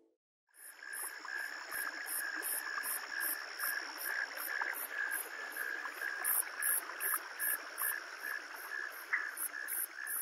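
Insects chirping in a steady shrill chorus, pulsing regularly about two to three times a second. It starts about half a second in, after a brief silence.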